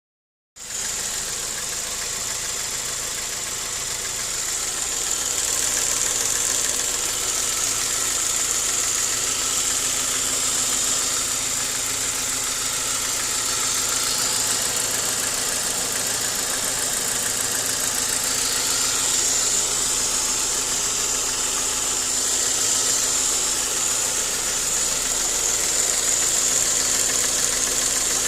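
Saab 9-5 Aero's turbocharged 2.3-litre four-cylinder engine idling steadily, a little louder from about five seconds in.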